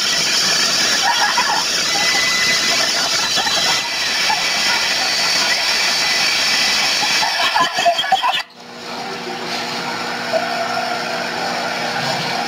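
Leaf blower running, a loud steady rush of air blasting from the nozzle. About eight and a half seconds in it cuts off abruptly, and a quieter steady hum takes over.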